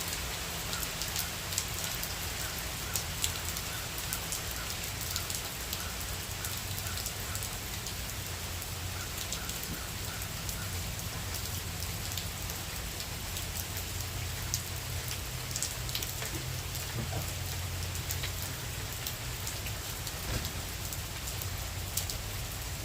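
Steady rain from a tropical storm, with many sharp drop ticks scattered through it and a low steady hum underneath.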